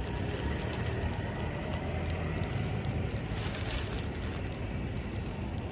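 Thin plastic bag crinkling and crackling in the hands as chicken is bitten out of it, loudest about three and a half seconds in, over a steady low rumble of city street traffic.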